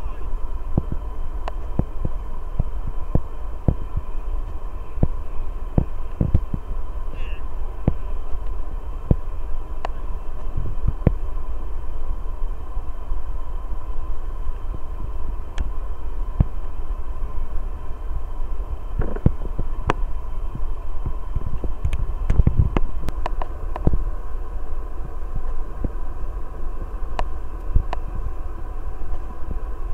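Boeing 747-400's four Rolls-Royce RB211 turbofan engines at taxi power, heard from a distance as a steady whine over a low rumble. Frequent irregular thumps run through it, bunched more thickly about two-thirds of the way through.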